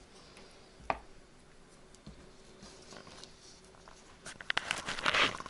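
Small kitchen handling sounds from hand-making meat dumplings: a single sharp click about a second in, then a flurry of rapid clicks and rustling near the end.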